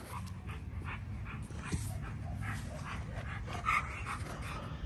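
A dog panting in quick short breaths, with a sharp click about two seconds in and one louder short dog sound about three and a half seconds in, over a steady low hum.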